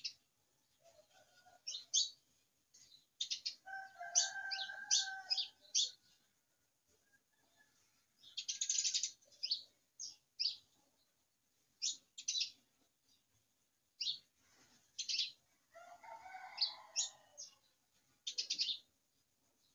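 Birds chirping in short high calls throughout, with a longer, lower call about four seconds in and again near the end. Short scraping sounds of a dough scraper on a wooden board mix in.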